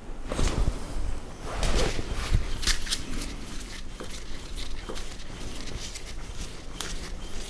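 Hands handling small metal machine parts: rustling with scattered light clicks and knocks of metal, busiest in the first few seconds.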